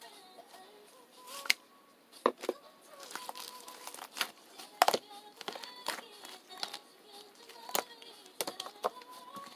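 Faint music under a string of sharp clicks and taps at irregular intervals, the loudest about a second and a half in and just before five seconds in.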